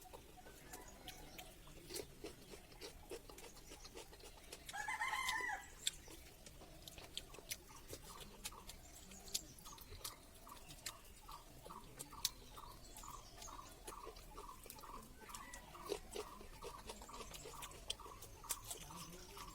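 Birds calling: a short, loud call about five seconds in, then a steady run of evenly repeated notes, about three a second, from about eight seconds on. Small clicks are scattered throughout.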